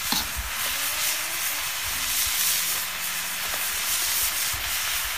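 Chong cai greens, chilies and diced meat sizzling in a large iron wok, a steady hiss, with a spatula scraping and tossing them briefly at the start.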